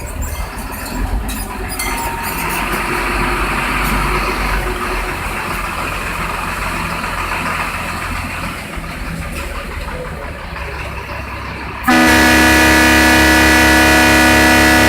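A truck engine running with a low rumble. About twelve seconds in, old air horns fed from the truck's air line give one loud blast, a chord of several tones held for about three seconds.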